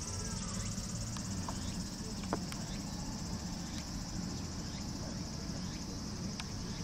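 Steady high-pitched insect chorus, with a few faint clicks, the sharpest a little over two seconds in, over a low background rumble.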